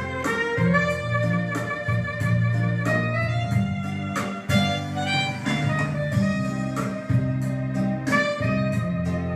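Instrumental music with guitar and a steady beat, in a jazz or blues style.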